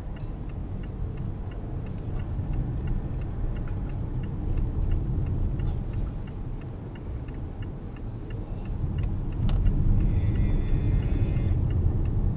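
Mazda CX-5 cabin noise from a dash camera: a low road-and-engine rumble that grows louder about two-thirds of the way through as the car speeds up. The turn-signal indicator ticks steadily.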